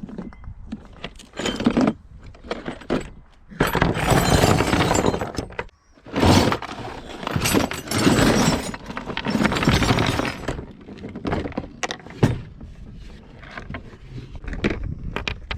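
Metal hand tools clattering and jangling as a toolbox is emptied out, in several long rattling stretches with sharp clinks in between.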